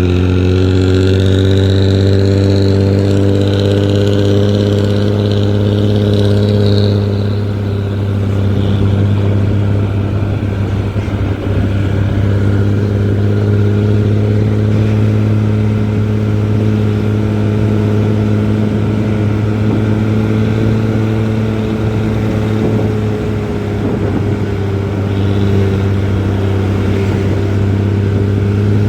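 Diesel engine and exhaust of a Nissan-chassis intercity bus running loud and steady, with a deep, even drone and only slight changes in engine speed. A high whine rises over the first few seconds and dies away about seven seconds in.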